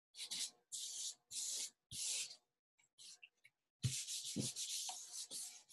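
Hands rubbing and smoothing a glued paper cutout flat onto a sheet of paper: four short brushing strokes in the first two seconds, a pause, then steadier rubbing from about four seconds in with a couple of soft knocks on the table.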